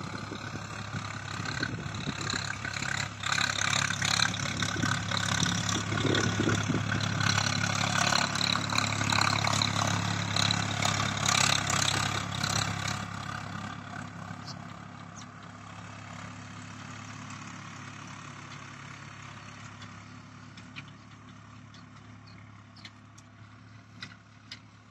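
Swaraj 855 tractor's three-cylinder diesel engine working under load as it drags a laser land leveller across ploughed soil. It is loud as the tractor passes close, then grows steadily fainter from about thirteen seconds in as it pulls away.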